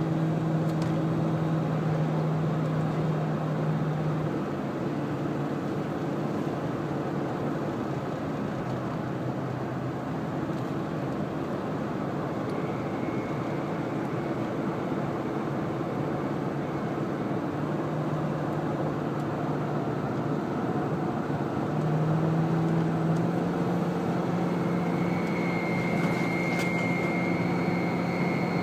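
1998 Ford Expedition 4.6-litre V8 running, with an odd harmonic hum over the steady engine noise. The hum fades out after a few seconds and comes back in the second half, joined by a high whine near the end. The owner suspects the belt tensioner he recently installed.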